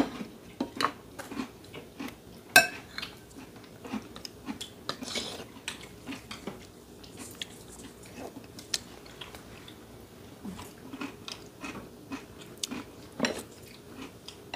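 Metal spoons and chopsticks clicking against bowls and plates now and then, with quiet chewing in between. The sharpest clinks come about two and a half seconds in and again near the end.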